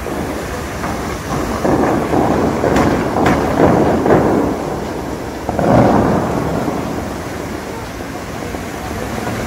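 Dubai Fountain's water jets shooting up and crashing back into the lake: a heavy, rain-like rush of falling spray that swells twice, with two sharp cracks about three seconds in.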